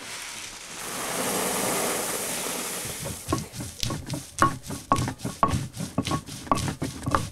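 Grain poured from a plastic basket into a woven sack, a steady rushing hiss of kernels, followed from about three seconds in by a stone hand roller stroking back and forth over a grinding stone (metate), sharp scraping strokes about two a second.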